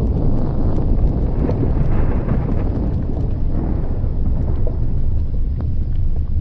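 Steady deep rumble of an erupting volcanic crater venting a glowing gas plume, with many faint crackles and pops scattered through it.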